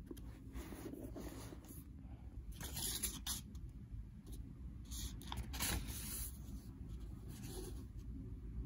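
Faint, irregular scraping and rustling: a handful of short scrapes, the strongest about three seconds and six seconds in, over a low steady hum.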